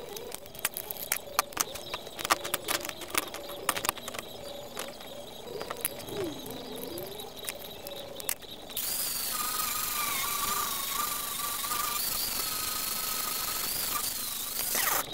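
Clicks and knocks as an abrasive disc is handled and fitted onto an angle grinder. About nine seconds in, the angle grinder starts grinding steel with a steady loud hiss and a high, slightly wavering whine.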